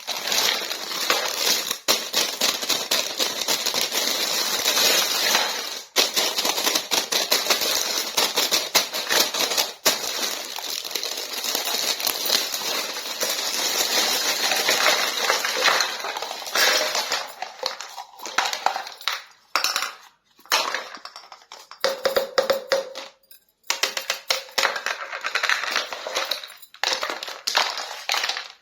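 Crinkling and crackling of plastic packaging as a miniature plastic toy kitchen set is unboxed, continuous for about the first half. After that come separate clicks, taps and clinks of small plastic toy pieces being handled.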